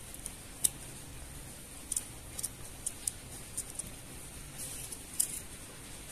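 Kitchen knife cutting a red bell pepper held in the hand: a string of crisp, short snips at uneven intervals, roughly one every half second, as the blade cuts through the pepper's skin.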